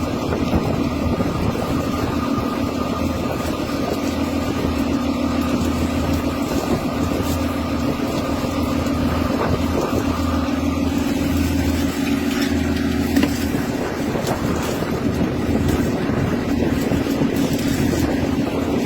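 A boat engine running steadily, a continuous low drone with an even hum.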